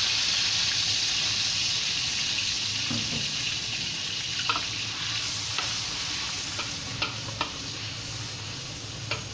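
Chopped garlic and onion sizzling in hot oil in a wok, the sizzle slowly easing. From about halfway a spatula stirs them, clicking and scraping against the wok several times.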